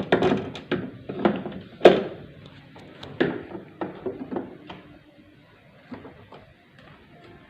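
Irregular knocks, clunks and scrapes of a top-loading washing machine's plastic drain valve assembly being forced apart by hand. The knocks come thick and loud for about five seconds, then thin out and go quiet.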